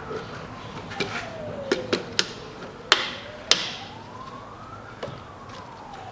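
A siren wailing slowly up and down in the background. Over it come a series of sharp clicks and knocks from tools and parts being handled, loudest about three and three and a half seconds in.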